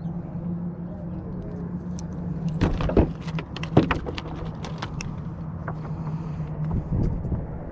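A steady motor hum that stops near the end, with a few sharp clicks and knocks about three to four seconds in.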